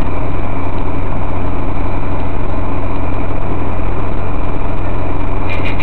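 Car engine and road noise heard from inside the cabin through a dashcam's built-in microphone: a steady, loud low drone. A run of clicks and rattles starts near the end.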